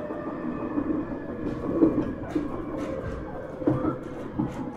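JR East 701 series 1000 subseries electric multiple unit running at speed, heard from inside the car: a steady rumble of wheels on rail with irregular clicks and knocks from the running gear and rail joints.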